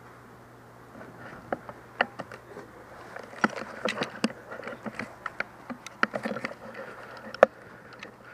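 Irregular sharp pops and clacks of airsoft gunfire and BB hits in the field, several a second at their busiest, over a steady low hum. The loudest crack comes near the end.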